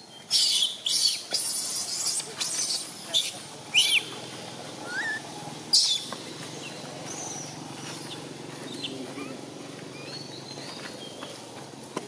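Infant long-tailed macaque crying loudly in distress: a run of about eight shrill, high-pitched screams in the first six seconds, then only faint short squeaks.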